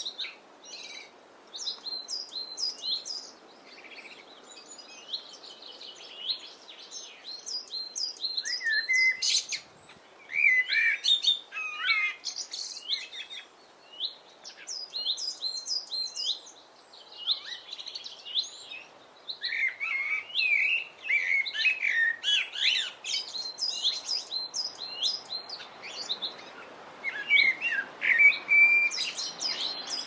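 Songbirds chirping and singing: runs of quick, high, repeated chirps mixed with lower warbled phrases, over a faint steady background hiss.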